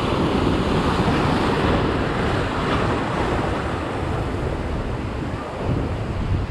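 Ocean surf breaking and washing over sand and around jetty rocks as a steady rush of water, with wind on the microphone.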